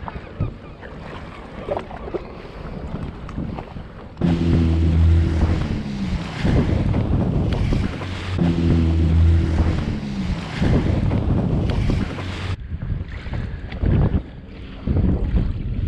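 Wind buffeting the microphone and sea water slapping around a drifting jet ski, much louder from about four seconds in. A low hum drops in pitch twice in the loud stretch.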